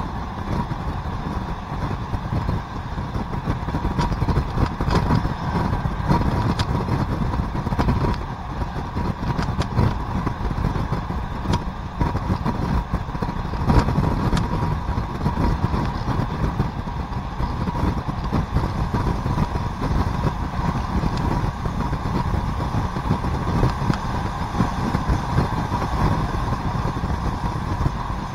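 ALn 668 diesel railcar running along the line, heard from on board: a steady engine drone with wheel-on-rail rumble and scattered sharp clicks from the track.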